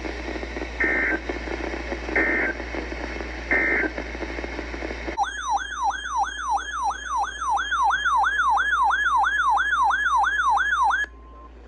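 Three short bursts of the Emergency Alert System's two-tone data signal sound over weather-radio static: the end-of-message code that closes an alert. A clean electronic siren-like tone then sweeps up and down about three times a second for about six seconds before cutting off abruptly.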